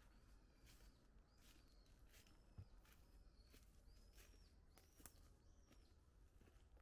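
Faint footsteps crunching through dry fallen leaves at a steady walking pace, about one step every three-quarters of a second. Small, high, repeated chirps, likely a bird, sound between the steps.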